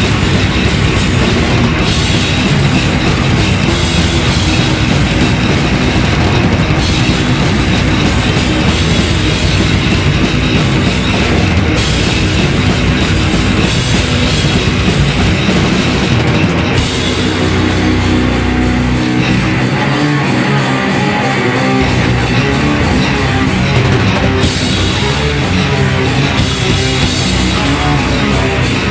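Heavy metal band playing live: distorted guitars, bass and drum kit, loud and continuous. About twenty seconds in, the lowest notes drop out for a couple of seconds before coming back.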